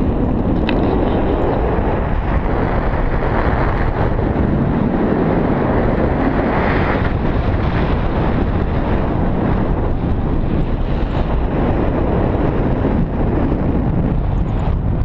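Loud, steady wind rushing and buffeting over a camera microphone in flight under a paraglider.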